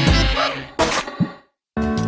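Instrumental music of a Hindi film song that dies away to a brief dead silence about a second and a half in, then comes back with a held chord.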